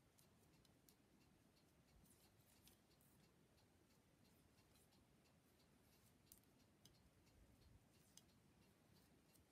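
Near silence, with a few faint ticks from a knitting needle and a Tunisian crochet hook as stitches are slipped from one onto the other, most of them in the second half.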